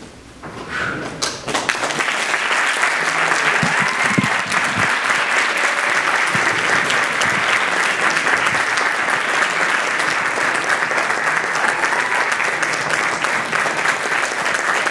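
Audience applauding: after a short hush, dense clapping breaks out about one and a half seconds in and carries on steadily.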